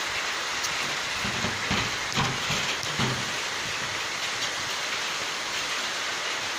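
Heavy rain falling on rooftops: a dense, steady hiss, with a few brief low bumps between about one and three seconds in.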